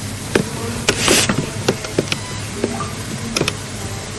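Background room noise: a low steady hum with scattered sharp clicks and a brief hiss about a second in.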